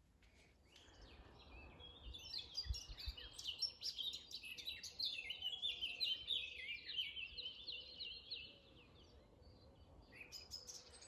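Dawn chorus: many songbirds chirping and singing at once, starting about a second in and thinning out near the end.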